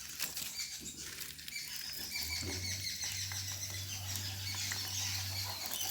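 Jackfruit pieces frying in hot oil: a dense crackling sizzle. A low steady hum comes in a little over two seconds in.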